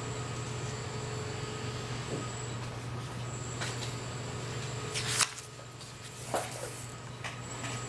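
Steady low hum of room ventilation, with a few short rustles and knocks as paper is handled; the loudest rustle comes about five seconds in.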